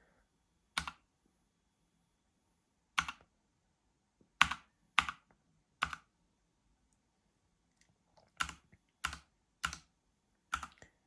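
Single key presses on a Redragon K565 mechanical keyboard with red linear switches: about ten separate clacks, irregularly spaced with a few in quick pairs, as keys are pressed one at a time to cycle the backlight modes.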